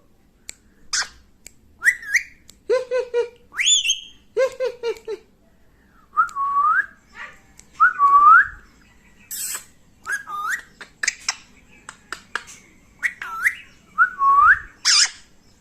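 Pet parrot whistling: a string of short whistles that dip and then rise in pitch, a second or two apart, mixed with a few short vocal calls and a couple of harsh screeches.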